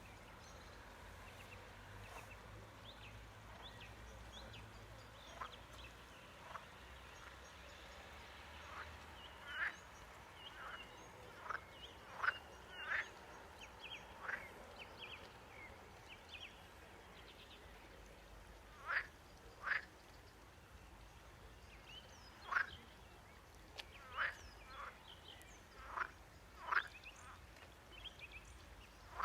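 Animal calls outdoors: louder, short sweeping calls come singly or in pairs every second or few seconds, from about a third of the way in, over a steady background of faint high chirping.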